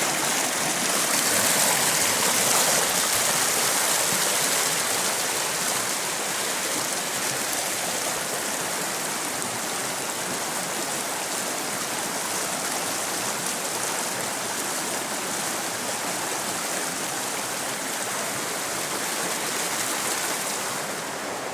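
Forest stream running, a steady rush of water that eases slightly after the first few seconds.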